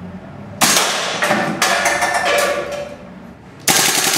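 Inokatsu M4A1 SOPMOD gas blowback airsoft rifle firing: a few separate sharp shots ring out in a hard-walled room from about half a second in. Near the end a rapid full-auto burst starts, each shot a quick crack of gas and the steel bolt carrier slamming back and forth.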